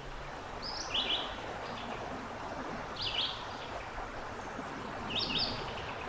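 Prothonotary warbler singing three short, high phrases about two seconds apart, each a quick run of a few notes, over a steady background hiss.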